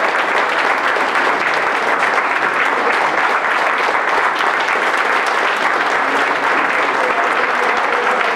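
A crowd of people clapping steadily: a sustained round of applause welcoming a speaker who has just been introduced.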